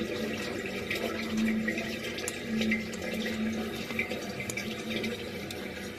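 Water running steadily with a splashing rush, like a tap, and a few small clicks and knocks over it.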